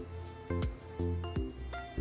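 Background music with a steady beat, about two beats a second, over pitched notes.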